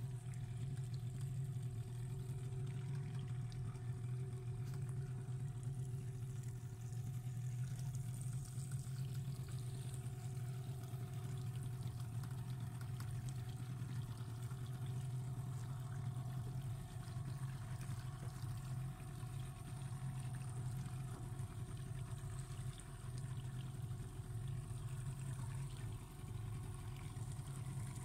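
Boat's outboard motor running at a steady speed, a constant low drone, with water washing along the hull.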